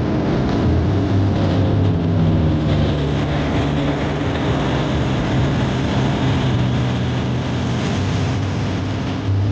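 Propeller engines of two aerobatic MX2 aircraft droning steadily as they fly a formation routine, with a swell near the end.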